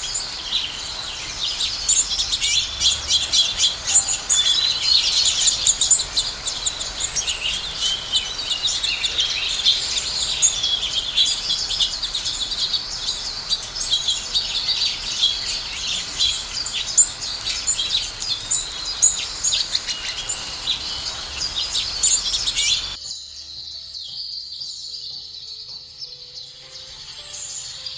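A group of house sparrows chirping: many quick, overlapping chirps. The chirping cuts off abruptly near the end, leaving a fainter, different sound.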